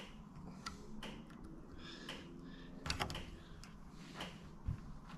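Scattered light clicks and taps of hands working a rubber seal and small parts on a vehicle door, with a faint steady low hum underneath.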